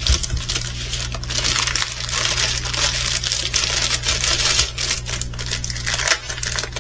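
Small bags of resin diamond painting drills being handled, the drills rattling and clicking against each other inside crinkling plastic.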